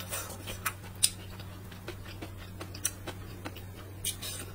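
Close-miked eating of stir-fried rice noodles with vegetables: scattered soft wet mouth clicks and small crunches of chewing, over a steady low hum.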